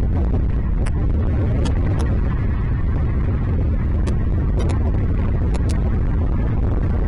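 Steady low rumble with a few short, sharp high-pitched ticks scattered through it.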